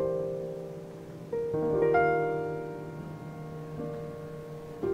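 Slow, soft piano music. Notes and chords are struck a few at a time and left to ring and fade, with fresh notes about a second and a half to two seconds in and another chord near the end.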